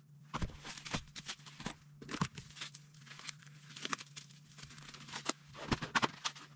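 Black nitrile gloves being pulled on: irregular crinkling, rustling and snapping of the thin rubber, with a few louder clicks and knocks near the end as a gloved hand reaches under the bench.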